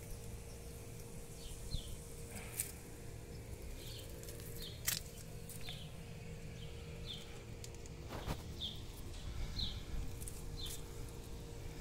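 Faint outdoor ambience: a small bird chirping repeatedly in short high notes, with a few sharp clicks and a steady low rumble underneath.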